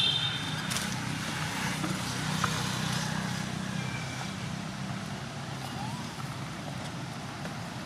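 Steady low hum of a motor vehicle's engine running, with a few faint short chirps over it.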